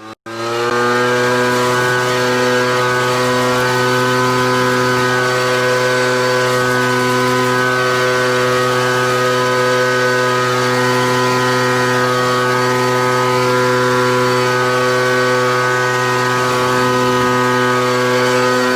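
Toro TimeCutter zero-turn mower engine running steadily at high speed. Its pitch rises briefly in the first second, then holds even throughout.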